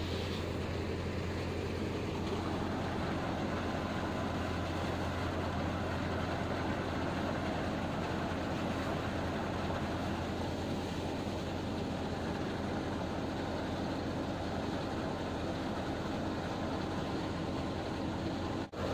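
Mung bean threshing machine running steadily under load: a constant low hum from the drive with a dense rattling, whooshing churn as plants are fed into the drum. The sound drops out for a split second near the end.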